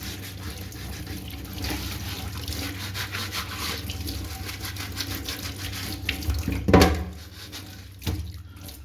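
Tap water running and splashing as a washing-machine part is rinsed under it, with a loud knock about two-thirds of the way through.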